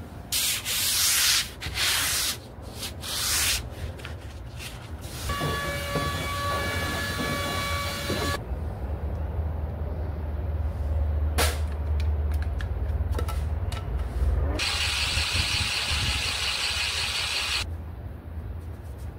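Paint roller rubbing over the plywood hull in a few loud strokes, then a steady squeal for about three seconds. Scattered clicks and knocks follow, and a longer stretch of rubbing comes near the end.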